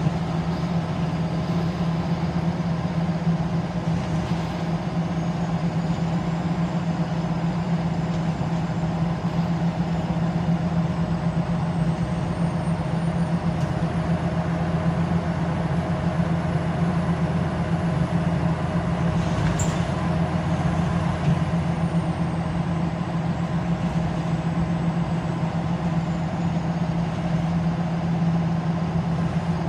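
Scania L94UB Wright Solar single-deck bus cruising at a steady speed, heard from inside the passenger saloon: a constant engine drone over road and running noise. A faint high whine rises in the middle and falls away again later.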